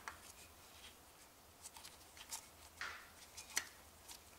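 Faint scraping and a few light clicks from a compression tester's hose fitting being turned by hand in a spark plug hole, its thread not yet catching.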